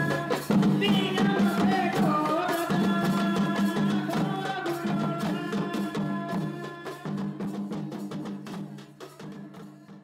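Tribal folk dance music: hand-carried barrel drums beating a rhythm under a melody, fading out over the last few seconds.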